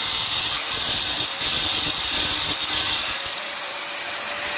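Electric angle grinder with a cutting disc cutting through a refractory brick, a harsh, steady grinding noise. About three seconds in the grinding gets quieter and the motor's whine comes through.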